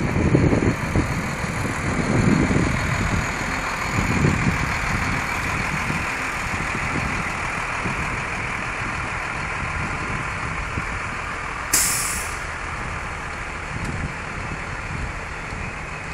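Steady engine and road noise from a box truck stopped at the kerb, with one sharp air-brake hiss about twelve seconds in that dies away within a second.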